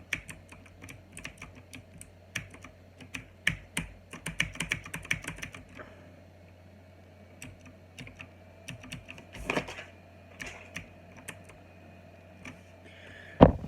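Typing on a mechanical keyboard with clicky OUTEMU Blue switches: quick runs of sharp key clicks, then a short pause and scattered single keystrokes. A loud thump comes near the end.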